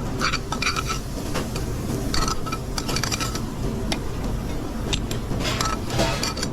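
Restaurant kitchen line at work: scattered clinks and scrapes of pans and metal utensils over a steady low rumble.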